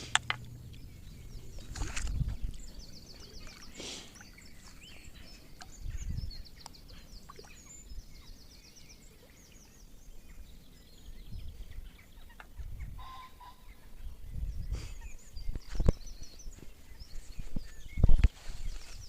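Birds singing and calling in short, rapid trills over and over, with intermittent low thumps and knocks, the loudest near the end.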